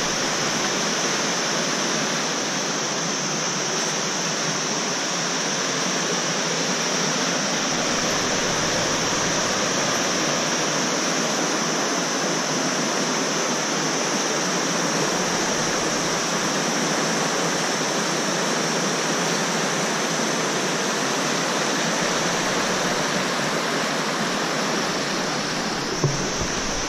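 Mountain river rushing over rocky rapids: a steady rush of white water.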